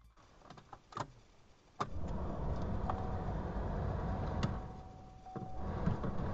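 Ignition key clicks, then the Chevy HHR's heater blower fan comes on suddenly, about two seconds in, with a steady rush of air and a steady whine under it. The airflow drops away about five seconds in and comes back as the new blower speed switch is turned, the fan control now working.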